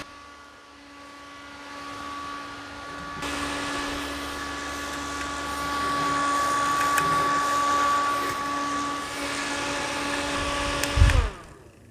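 Small battery-powered clip-on desk fan running fast, a steady motor hum and whine over rushing air. It gets louder about three seconds in. Near the end there is a knock, and the motor's pitch drops as it is switched off and spins down.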